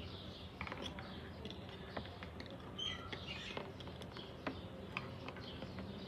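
Scattered light clicks and taps from a ringneck parakeet at its wire cage as it goes for a plastic bottle, with a short, soft chirp about three seconds in.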